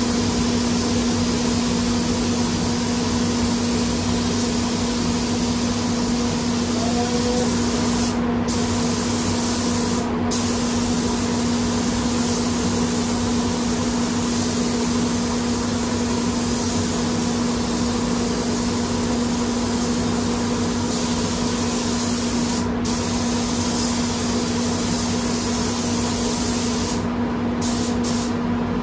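DeVilbiss spray gun hissing steadily as compressed air atomises solvent basecoat, with a few brief breaks in the hiss. A steady low hum runs underneath.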